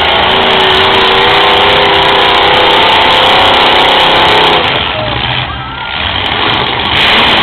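Demolition derby cars' engines revving loudly in a steady din. The din eases off about five seconds in and rises again near the end.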